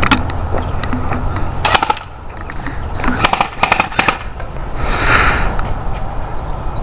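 Airsoft guns firing: a single shot at the start, then short bursts of rapid shots about two seconds in and again between three and four seconds in, typical of the electric airsoft AK.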